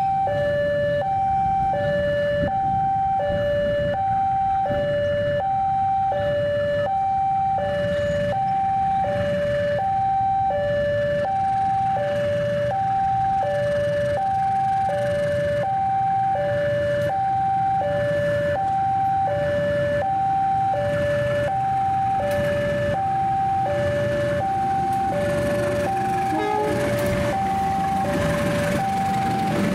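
Electronic level-crossing warning alarm sounding a steady two-tone high-low chime, about one pair every second and a half. Under it runs the low rumble of a diesel-electric locomotive hauling a passenger train past.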